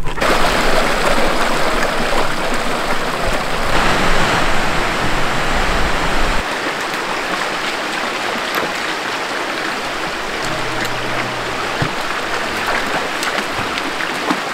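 Mountain creek water running over rocks, a steady even rush. A low rumble under it drops away about six seconds in.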